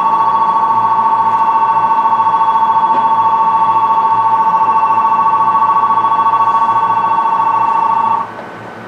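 Station platform departure bell ringing continuously, a loud steady ring with a fast flutter, signalling that the train is about to leave; it cuts off suddenly about eight seconds in.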